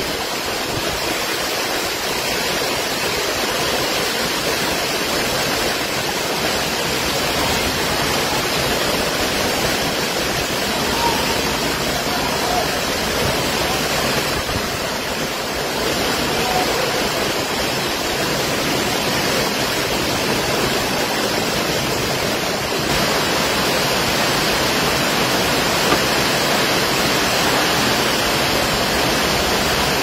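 Torrential wind-driven rain in a strong storm, falling on and around a corrugated metal roof: a steady, dense hiss of downpour with no let-up.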